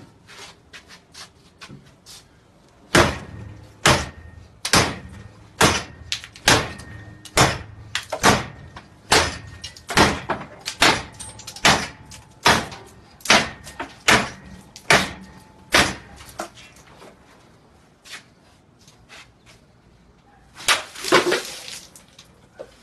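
A machete-style blade chopping hard into something: about sixteen sharp strikes a little under a second apart, with fainter knocks before them and a short louder clatter near the end.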